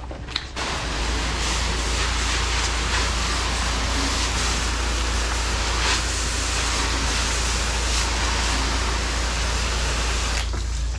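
Pressure washer wand spraying a jet of water, a steady hiss with a deep rumble underneath; it starts abruptly about half a second in and cuts off near the end, as the trigger is pulled and released.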